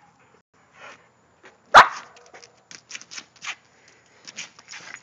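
A dog barks once, loud and sharp, about two seconds in, followed by a string of short, quieter sounds as it goes at a burning object to put the fire out.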